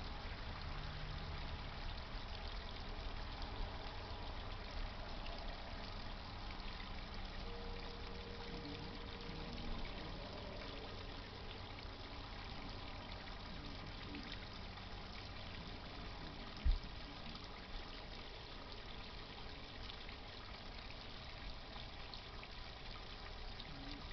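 Steady trickling and splashing of water from a garden pond's pump. A single short low thump comes about two-thirds of the way through.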